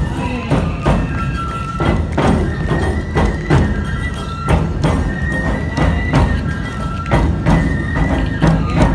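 Nebuta festival hayashi played live: large taiko drums struck about twice a second, with bamboo fue flutes playing held, high notes over them.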